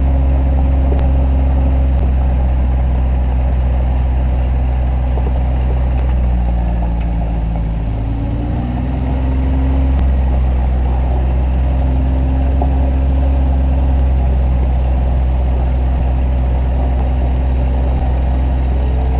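Kawasaki Mule UTV engine running steadily as it drives along, a loud low drone whose pitch shifts briefly around the middle.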